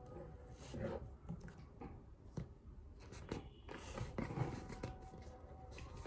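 Faint scattered taps and rustles of a paper notebook being handled in a quiet small room.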